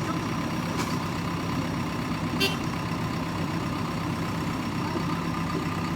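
Heavy diesel engine running steadily at a low, even hum, with a faint click just under a second in and a brief sharp metallic sound about two and a half seconds in.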